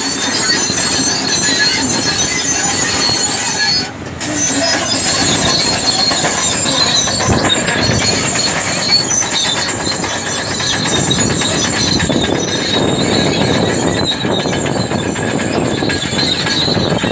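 Caterpillar crawler bulldozer at work pushing earth, its engine running under the squeal and clank of its steel tracks.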